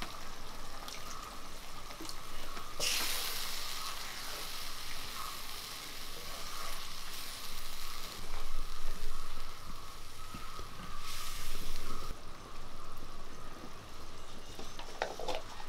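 Spicy onion-tomato masala gravy sizzling in a cast-iron kadai over a wood fire, stirred now and then with a wooden spatula. The hiss swells louder about three seconds in and again about eleven seconds in.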